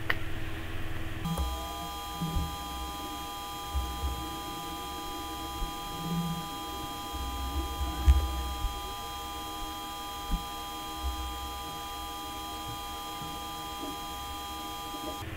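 Steady electronic hum made of several fixed tones, starting abruptly about a second in and cutting off just before the end, with a few soft low thumps underneath.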